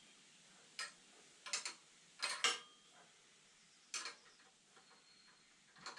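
Wrench working a fitting loose on an engine: several faint, sharp metal clicks and clinks at irregular intervals.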